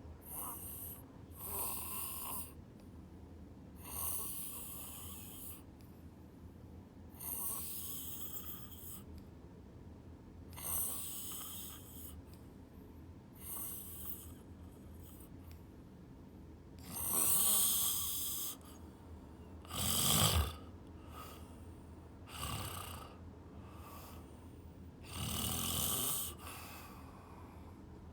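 Snoring in sleep: a series of noisy breaths about every two to three seconds, some carrying a low rattle, the loudest a little past the middle.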